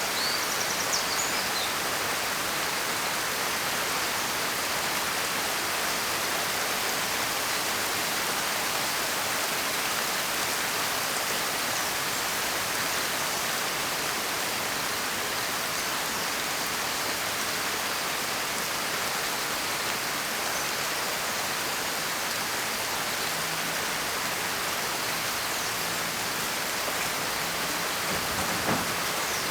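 Steady heavy rainfall, an even hiss with no pauses or changes in strength. A few faint high chirps sound in the first second or so.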